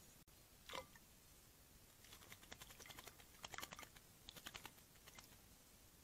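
Juvenile Eurasian blackbird in a shallow ceramic water dish: quick runs of faint small clicks and light splashes, with near silence around them.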